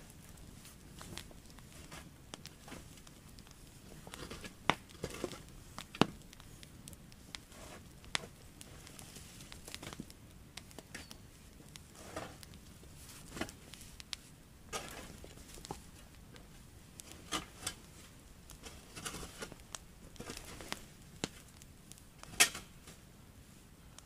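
Irregular light knocks and taps with some rustling, as of things being handled; a few sharper knocks stand out, the loudest a little before the end.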